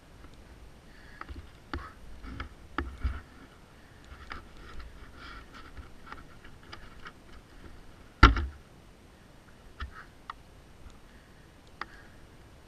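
Scattered clicks, knocks and rustles of a fallen Yamaha Super Ténéré motorcycle being handled, with one sharp, loud knock about eight seconds in. The engine is not running.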